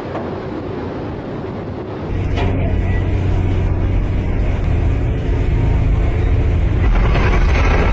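Low, steady engine drone of a vessel, with rushing wind and water noise. About two seconds in it turns abruptly louder and heavier.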